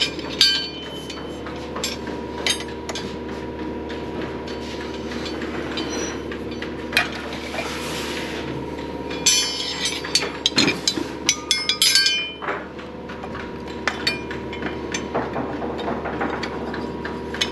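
Steel wrenches clinking and clattering as they are picked through and handled, in irregular bursts that are busiest a little past halfway, over a steady background hum.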